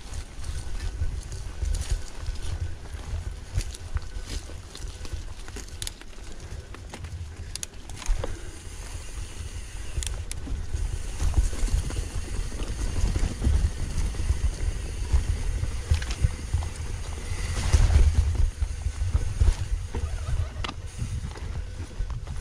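Wind rumbling on the microphone while a mountain bike rolls down a rough trail, with scattered rattles and clicks from the bike and tyres. The rumble swells briefly near the end.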